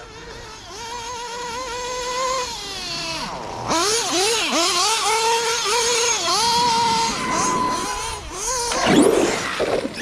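Arrma Kraton 8S EXB RC truck's brushless electric motor and drivetrain whining, the pitch rising and falling over and over with the throttle as it accelerates and slows. About nine seconds in, a brief louder rough rushing noise breaks through the whine.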